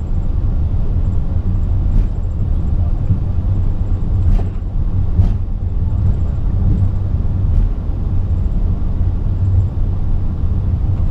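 Steady low rumble on the flight deck of an Airbus A380 taxiing at low speed, with a few faint clicks scattered through it.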